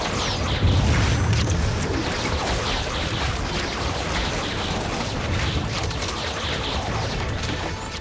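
Dramatised battle sound of a volley of arrows loosed by mounted archers, in a dense wash of noise, with a heavy low boom about half a second in.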